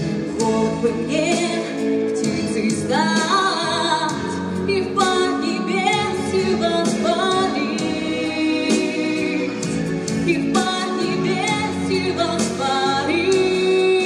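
A woman singing into a handheld microphone over accompanying music, her voice gliding and held on long notes.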